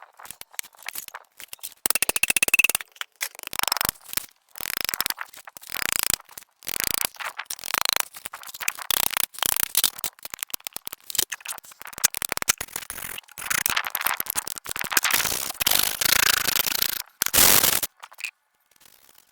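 Farrier tools working on a horse's hoof: a run of short, harsh scraping and cutting strokes, broken by frequent sudden gaps.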